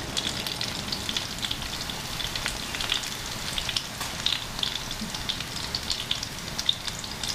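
Steady fine crackling and sizzling from a hot pan on a gas stove.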